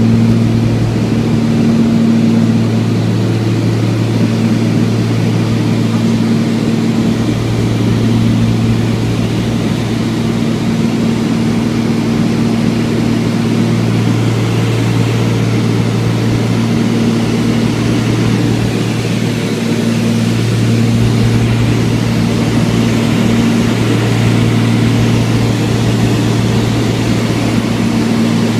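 Small propeller aircraft's engine droning steadily in flight, heard from inside the cabin, with a constant low hum.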